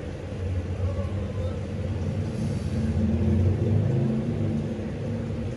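A low, steady rumble that swells about three seconds in and eases again near the end.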